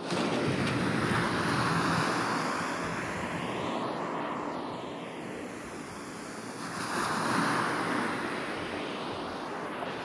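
Small tropical surf breaking and washing up a sandy beach in two waves: one swells in sharply at the start, and a second comes about seven seconds in. The sound is panned around the listener with 8D audio processing.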